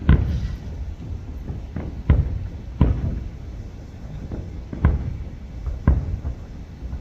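Fireworks booming, a string of sharp bangs about once a second, each followed by a low rumbling echo; the loudest comes right at the start.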